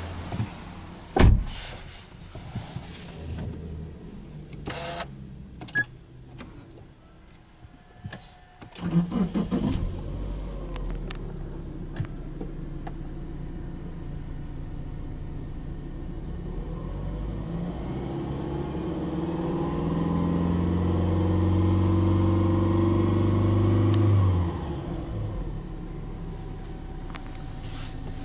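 Subaru Legacy Touring Wagon 2.5i's 2.5-litre flat-four engine, heard from inside the cabin, cranks and starts about nine seconds in and settles to idle. Later it is revved slowly up and held for several seconds before dropping back to idle. A few knocks and clicks come before the start.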